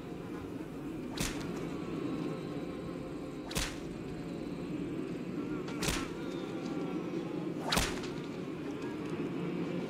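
A whip cracking four times, about every two seconds: lashes in a flogging of a man bound to a post.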